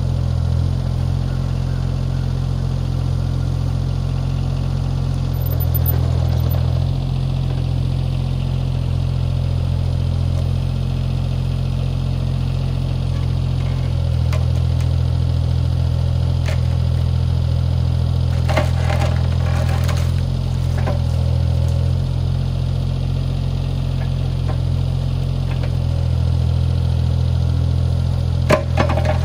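CAT 303C CR mini excavator's diesel engine running steadily, with short clusters of clattering knocks about two-thirds of the way through and again near the end.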